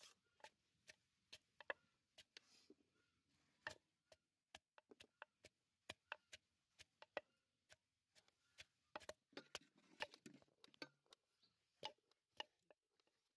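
Wooden pestle pounding chopped small green fruits in a wooden mortar: quiet, irregular sharp knocks and taps, often several a second.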